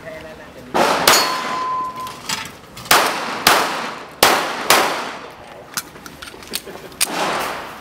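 Backup pistol firing about seven shots, mostly in quick pairs, each report with a long echoing tail. Steel targets clang on hits, and a clear ring lingers briefly after the second shot.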